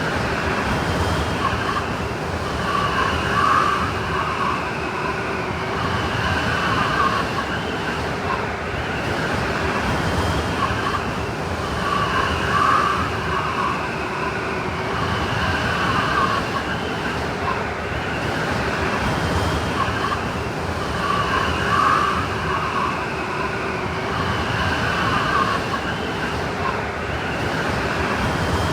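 Howling blizzard wind sound effect: a constant rush of wind with whistling tones that swell and fade in gusts, the same pattern coming round about every nine seconds as the effect loops.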